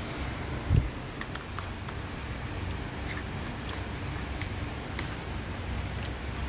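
A metal spoon clicking and scraping against a nonstick frying pan as fried rice is stirred, with light, irregular ticks throughout. A dull low thump comes just under a second in.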